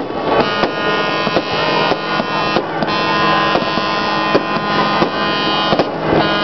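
Fireworks going off in a rapid run of sharp bangs and cracks over loud music with sustained chords.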